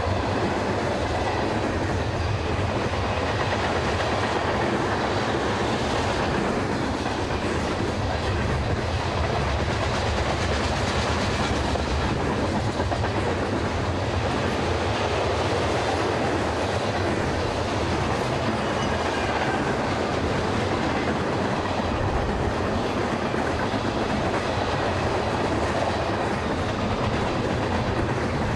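Freight train cars rolling past, steel wheels running on the rails in a steady, continuous noise.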